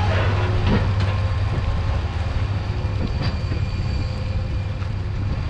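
Heavy farm machinery running steadily: a strong low engine drone with rattling clatter over it, and a couple of brief clanks.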